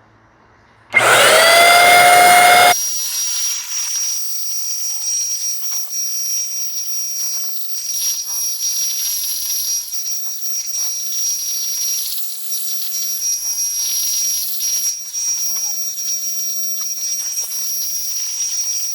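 Paint sprayer starting up with a rising whine about a second in, then spraying primer with a steady hiss and a constant high-pitched whine.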